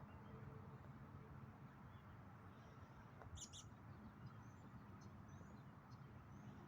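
Faint, steady low rumble of distant highway traffic. A pair of short high chirps comes about three and a half seconds in, with a few fainter ones after.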